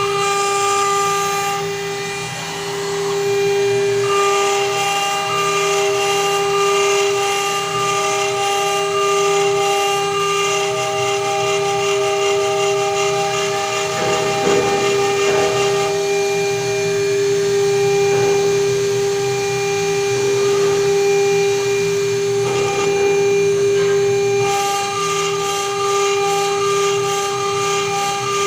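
CNC router spindle running with a steady high-pitched whine while its fine engraving bit cuts lettering into a brass plate. The pitch holds steady throughout, with some of its higher tones fading out and coming back.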